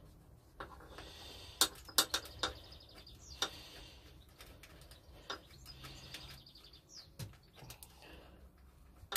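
Faint clicking of a socket ratchet undoing a 10 mm bolt, in two spells of rapid ticks, with scattered sharp clicks and clinks of the tool and metal parts.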